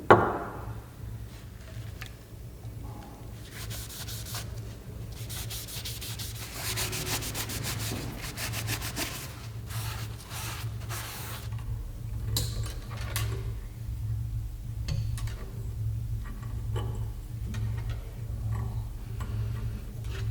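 Repeated rubbing and scraping strokes on a part of an antique hand coffee grinder, quick and dense for several seconds in the first half, over a steady low hum. A sharp knock at the very start is the loudest sound.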